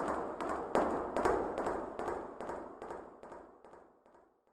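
Rhythmic tapping, about two to three taps a second, fading steadily to silence near the end.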